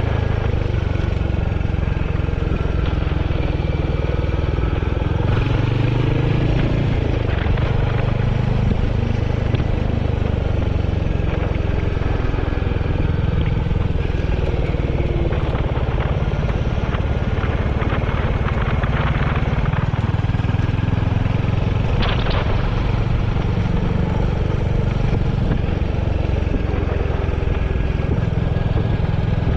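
Royal Enfield Hunter 350's single-cylinder engine running steadily under way, heard from on board the motorcycle.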